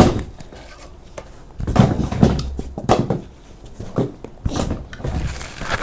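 A series of irregular knocks and thumps, the loudest about two seconds in: toys being handled and dropped into a box.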